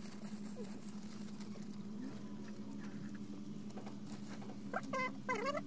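Brown-paper and plastic food wrappers crinkling and rustling as they are unwrapped by hand, over a steady low hum. Near the end come a few short, sharply swooping squeaks.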